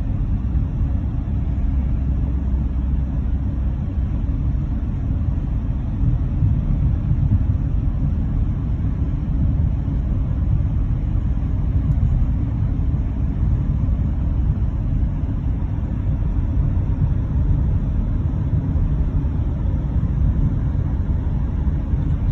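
Steady low rumble of road and wind noise from a moving car, with no distinct events.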